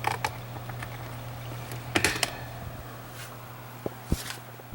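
Vintage Kuo Horng oscillating fan motor running on low with a steady low hum. Over it come sharp clicks and knocks, loudest about two seconds in, from hands refitting the oscillation peg.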